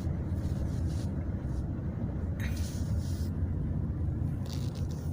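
Steady low rumble of a car's engine and tyres on a wet road, heard from inside the cabin, with a brief hiss about halfway through and again near the end.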